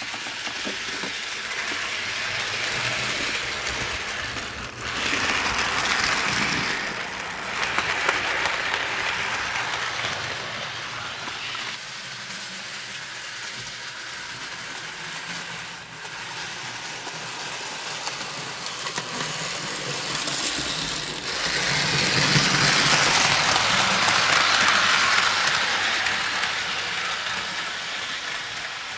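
HO scale model train running on the layout's track: a steady whirring rattle of its motor, gears and wheels on the rails, swelling louder about five seconds in and again in the last third as it comes close.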